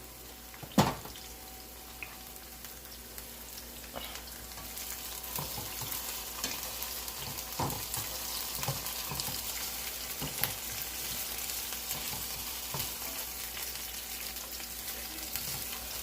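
Onion and bell pepper sizzling in hot vegetable oil in a pan, stirred with a utensil that knocks and scrapes against the pan. The sizzle grows louder about five seconds in, and there is a sharp knock about a second in.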